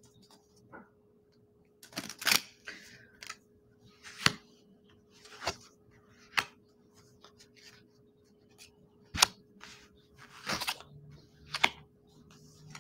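Fortune-telling cards being handled and laid down: a string of sharp clicks and snaps, about seven of them spaced a second or so apart. A faint steady hum runs underneath.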